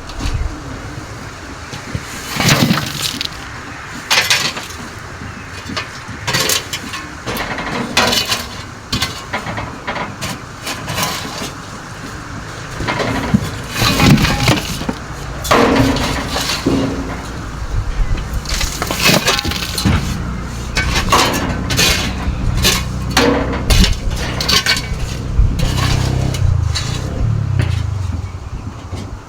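Irregular series of sharp clattering knocks and scrapes of hard objects, with a low steady hum in the second half.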